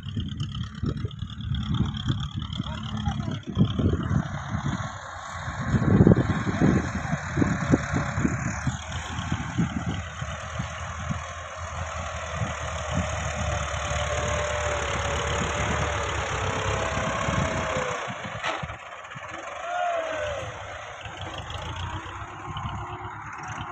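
Diesel farm tractor engine running under load as the tractor pushes soil with its front blade. The engine surges strongly about six seconds in.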